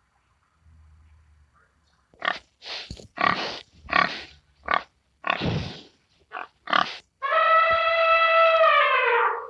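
Pig grunting and squealing in about nine short, harsh calls, followed by a long, brassy, held call that drops in pitch at its end.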